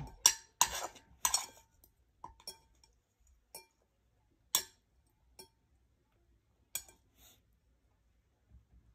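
Tableware clinking as someone eats: a quick run of sharp clinks in the first second and a half, then single clinks spaced a second or so apart.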